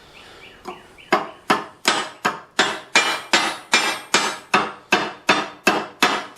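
Hammer driving a roll pin into a vise's collar ring, a steady series of sharp metal-on-metal taps at about three a second that begins about a second in.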